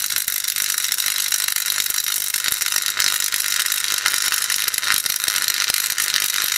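A microwave-oven transformer's high-voltage arc crackles steadily through wet iron sand between the electrodes in a mug. It is extremely loud, like a MIG welding arc, with a steady low hum underneath.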